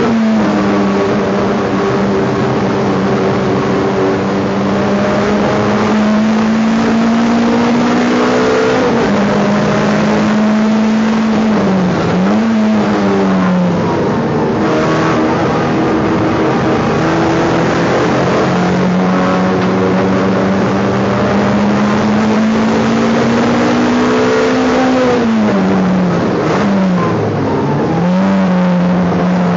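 Race car's engine heard from inside the stripped cabin, running hard at high revs that climb slowly. The revs fall away and bounce up and down about twelve seconds in and again near the end, then pick up once more.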